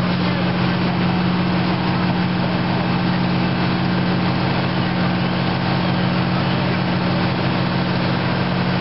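Fire engine's diesel engine running steadily, a constant low-pitched hum with no change in speed.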